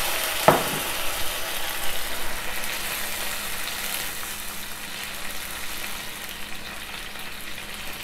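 Tamarind water sizzling in a hot non-stick kadai of fried peanuts, garlic and dried red chillies, the sizzle dying down steadily with the heat off, while a wooden spatula stirs through it. A short knock about half a second in.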